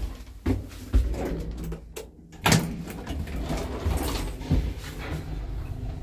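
Passenger lift's automatic sliding doors closing, with several clunks, the loudest about two and a half seconds in, over a low steady hum.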